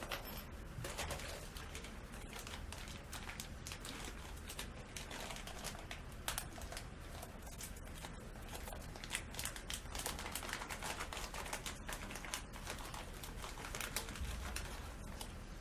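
Plastic cable ties and bundled wires being handled and tightened: a string of irregular small clicks and rustles.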